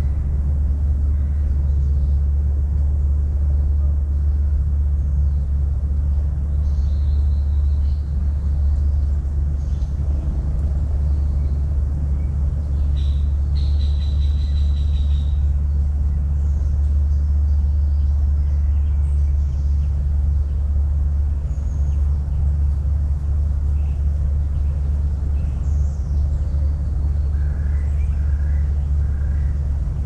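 Outdoor ambience of a steady low rumble, with a few faint high bird calls now and then, the clearest about halfway through.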